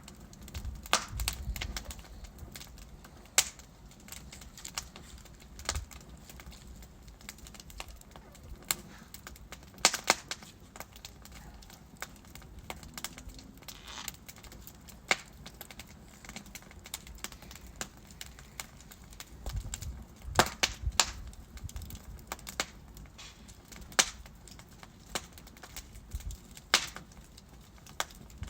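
Wood fire crackling: irregular sharp pops and snaps from burning logs over a soft low hiss, with a few louder cracks scattered through.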